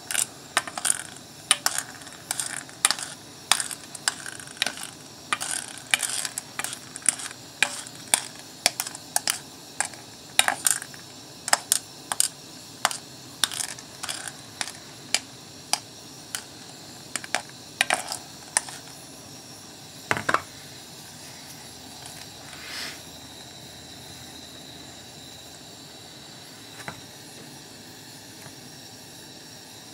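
Sharp metallic ticks and clicks, one or two a second, from steel bolts in a stainless pot of near-boiling Parkerizing solution on a gas burner, over a steady hiss of the solution fizzing on the bolts. The ticks stop about two-thirds through, leaving the hiss with one louder knock and a few scattered clicks.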